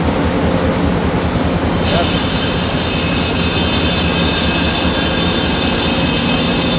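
Loud, steady machinery noise on board a ship. About two seconds in, a high-pitched metallic squeal starts and holds steady.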